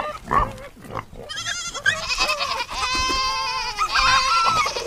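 Sheep bleating: a run of quavering bleats one after another, starting about a second in, the longest lasting about a second.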